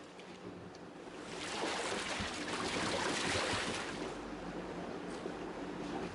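Water splashing and sloshing in a tub of foamy water crowded with trout, a rushing noise that swells about a second in and then carries on.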